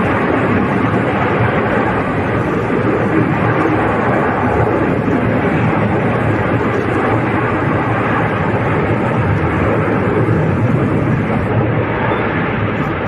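Steady, loud rumbling roar of Puracé volcano erupting.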